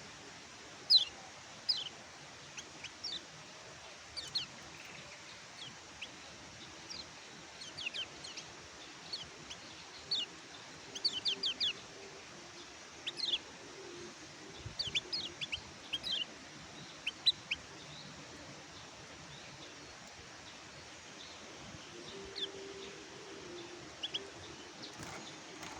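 Kecial kuning (pleci, a white-eye) calling with short, high, downslurred chirps. The chirps come singly or in quick runs of three or four, with a lull in the latter part.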